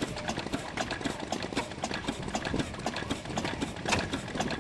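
Vintage Ruston stationary engine running steadily, with a rapid run of clattering knocks from its valve gear and crank over the low beat of the engine.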